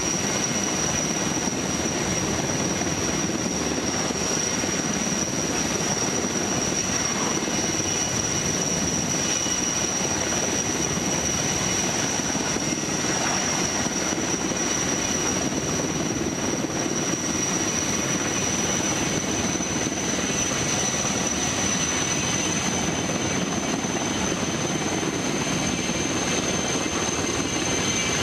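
Helicopter flying in, heard from inside a parked vehicle as a steady drone with a thin, steady high whine above it.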